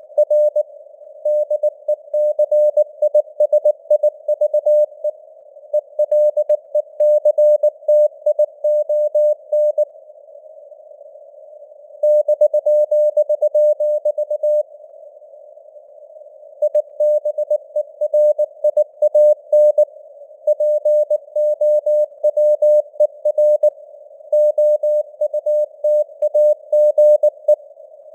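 Morse code (CW) at about 19 words per minute: a single mid-pitched beep keyed on and off in dots and dashes. Behind it is a narrow band of simulated radio hiss, and the signal strength rises and falls (QSB). The sending breaks off twice for about two seconds, about a third of the way in and about halfway through.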